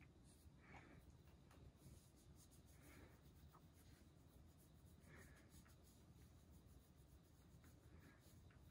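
Near silence, with a few faint, soft rubbing sounds spaced a couple of seconds apart: a hand stroking a puppy's fur.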